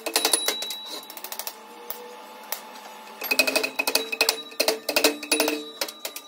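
Hammer tapping on a wooden block set against a metal blower housing to seat the parts during assembly. It comes in two quick runs of taps with a metallic ring: a lighter run that fades out in the first second and a half, and a denser, louder run starting a little past three seconds in.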